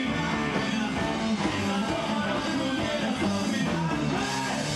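Rock band playing live, with guitars to the fore over bass and drums.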